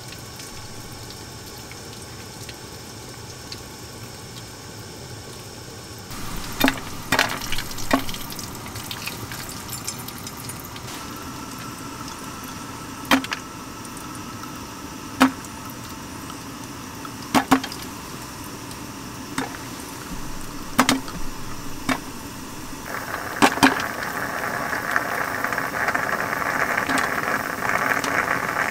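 Stovetop moka pot brewing on a small gas burner: a steady burner hiss, then coffee running from the spout into a stainless steel cup, with a sharp spit or pop every couple of seconds. Near the end it breaks into a steady sputtering gurgle as steam pushes through, the sign that the brew is finishing.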